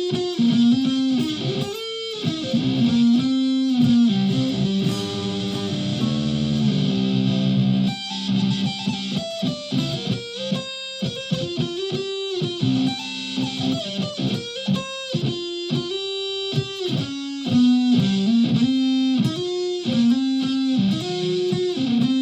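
Solid-body electric ukulele played through a clone of the Keeley Rotten Apple fuzz pedal, a Big Muff derivative built on hex inverter chips. It plays a fuzz-distorted riff of single notes and chords through a small PA speaker.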